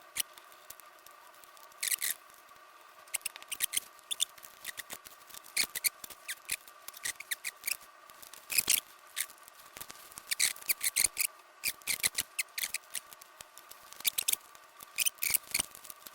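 Irregular small clicks, snaps and scratchy scrapes of tools and fingers working apart the plastic case and top assembly of a Casio PB-2000C pocket computer.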